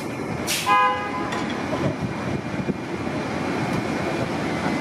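A short vehicle horn toot, about half a second long, just under a second in, over the steady street noise of an electric trackless trolley bus moving along the street.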